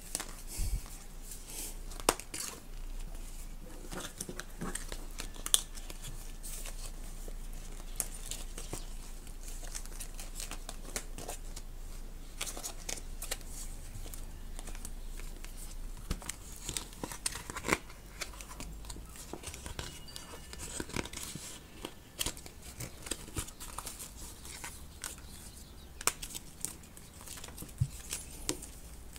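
Clear plastic packaging crinkling and rustling, with scattered sharp crackles and small taps, as a notebook and its fabric cover are handled, over a faint steady low hum.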